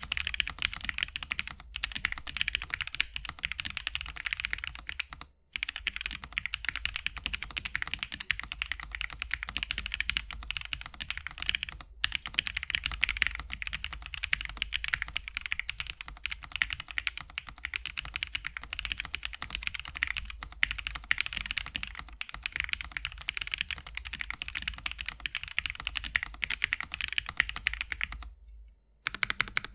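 Fast typing on a Fancytech Alice 66 mechanical keyboard with UHMWPE Cream switches on a POM plate in a stacked acrylic case: a dense, continuous clatter of keystrokes. It pauses briefly about five seconds in and again near the end.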